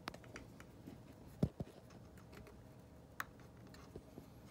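A few light taps and clicks from handling, against a quiet room. The loudest comes about a second and a half in, followed closely by a second, with another about three seconds in.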